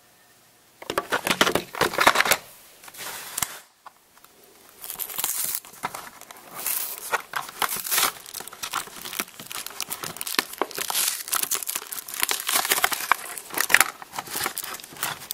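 A toy blister pack, clear plastic on a card backing, being torn open by hand: the plastic crinkles and crackles as it is pulled apart. It starts about a second in, pauses briefly around four seconds in, then goes on steadily.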